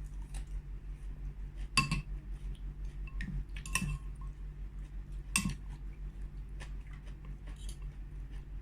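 Cutlery clinking against a soup bowl while eating, three sharp ringing clinks about two seconds apart with small scrapes and taps between, over a steady low hum.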